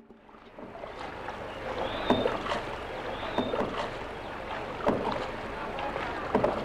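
Oar strokes splashing in calm water, a rowing boat's sound fading in over the first second, with a stroke about every second and a half.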